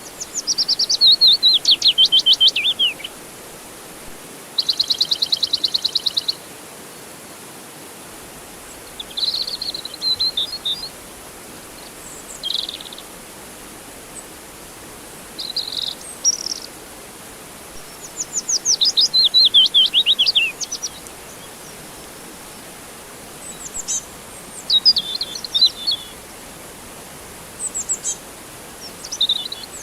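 Songbirds singing: a string of rapid trills and short chirping phrases, the longest trills falling in pitch, over a steady background hiss.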